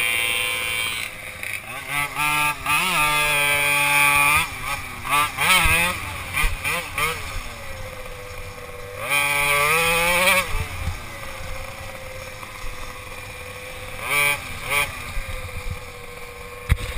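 Small petrol engine of an off-road ride revving up and down repeatedly. Its pitch rises and falls in short surges, with steadier running between them.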